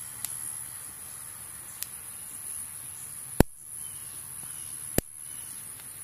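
Electric fence snapping four times in a steady rhythm, about one snap every 1.6 seconds, with the last two much louder: the charger's pulses are arcing from the hot wire to ground. It is the sign of a fault that is grounding out the fence and draining its voltage.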